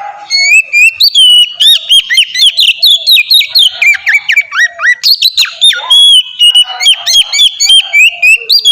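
Oriental magpie-robin (kacer) in full, loud song: a fast, unbroken run of clear whistled notes with sharp upward and downward slurs, starting about half a second in.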